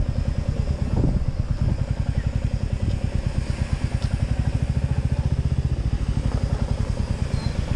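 Motorcycle engine running with a steady, even pulsing beat as the bike is ridden slowly; there is a brief louder rush about a second in.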